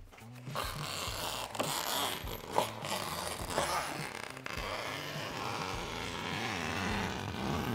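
Fabric rustling and scraping as the edge of an insect screen is pressed and tucked into a van's sliding-door frame, with a few light taps.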